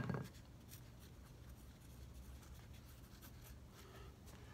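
Faint scratching of a pencil writing on paper laid on a workbench. A brief clatter dies away right at the start.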